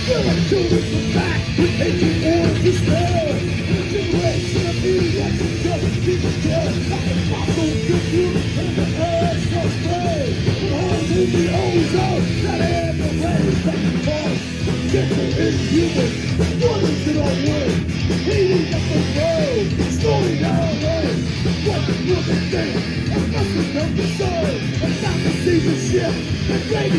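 Live hardcore punk / crossover thrash band playing at full volume: fast drums and distorted electric guitars, with shouted vocals in the mix.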